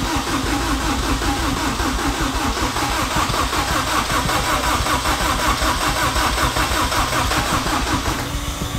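Turbocharged Honda K20 four-cylinder engine cranking on its starter at an even rhythm without firing, stopping near the end. It does not catch because the ECU is switched off: the fuel pump is feeding fuel but there is no spark.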